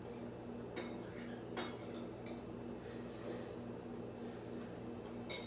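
Three short clinks of cutlery being handled, the loudest about a second and a half in, over a steady low hum.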